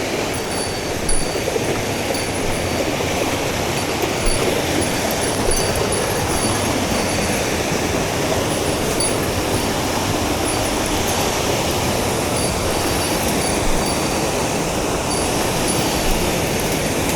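Mountain stream water rushing over rocks in a steady, even roar.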